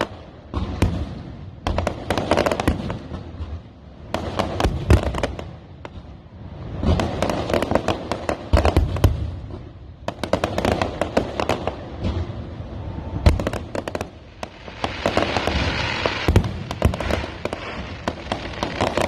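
Fireworks display: shells bursting with sharp bangs in quick clusters, mixed with crackling, with a dense stretch of crackle about fifteen seconds in.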